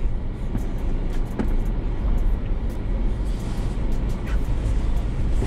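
Ford Bronco Sasquatch off-roading at crawling pace, with a steady low engine and drivetrain rumble and scattered light clicks as it works over the trail.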